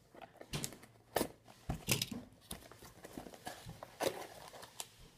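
A small cardboard box being cut open with scissors and its flaps pulled apart: a series of short, sharp cardboard crackles and taps, the strongest about a second in, about two seconds in, and about four seconds in.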